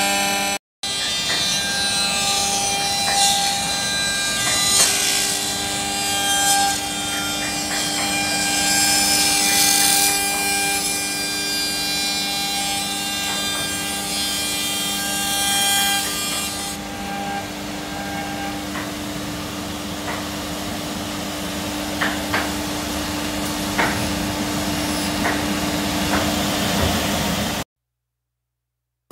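CNC router spindle milling walnut boards: a steady machine whine under the hiss of the bit cutting wood. The cutting hiss thins out about two-thirds of the way through, with a few sharp ticks after that, and the sound drops out briefly just after the start and again near the end.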